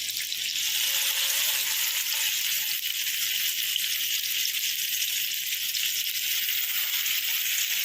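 Masala-coated fish frying in hot oil in a pan, with a steady sizzle that starts and stops abruptly.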